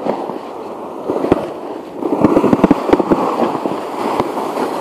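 Sled sliding down a snowy slope: a rough scraping hiss over the snow with many small crackles and knocks, louder from about two seconds in.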